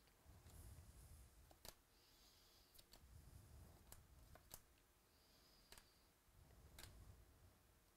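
Near silence: faint handling of a stack of baseball trading cards flipped through by hand, with soft sliding of card against card and a few light ticks.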